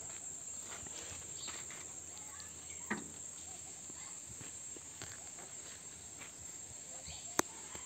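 Steady high-pitched shrilling of insects such as crickets or cicadas, with a few faint knocks and one sharp click about seven seconds in.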